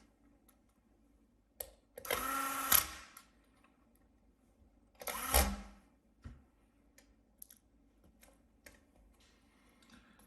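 Small electric screwdriver motor running in two short bursts, under a second each, about two and five seconds in, driving in the screws of a laptop's cooling fan. Light clicks of small parts and tools between.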